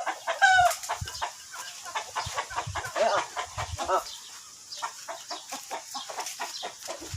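Chickens clucking in a run of short, repeated calls, loudest in the first second and again about three seconds in.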